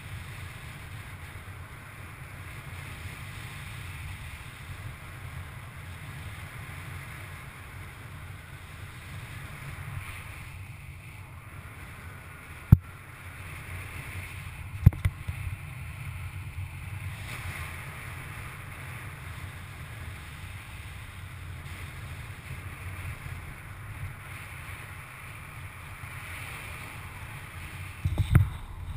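Steady rush of wind over the camera microphone of a paraglider pilot in flight. Two sharp knocks about 13 and 15 seconds in, and a short burst of louder thumps near the end.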